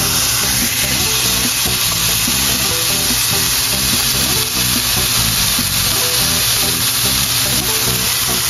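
A beef steak sizzling steadily in a frying pan, with background music playing over it.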